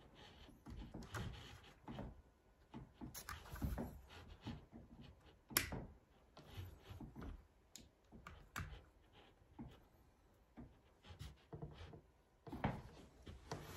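Faint handling noises from a bipod being adjusted on a rifle: scattered light clicks, knocks and rubbing, with a sharper click about five and a half seconds in.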